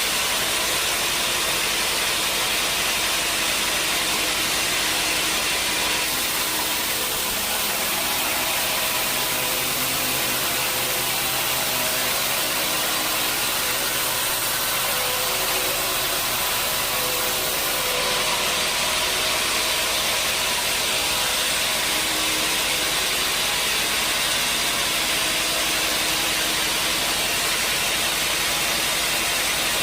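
Sawmill machinery running steadily: a continuous loud hiss with several steady humming tones underneath, and its high-pitched part shifts a couple of times.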